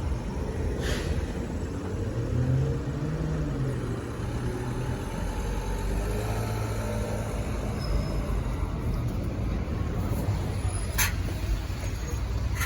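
Mercedes-Benz Citaro O530 bus running, its diesel engine and ZF automatic gearbox giving a steady low hum whose pitch rises and falls a few seconds in. Two short hisses come about a second in and near the end.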